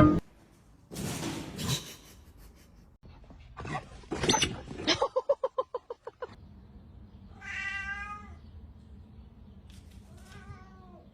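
A cat meowing: a call about four seconds in, followed by a quick run of short pulsing sounds, then a longer meow and a fainter one near the end.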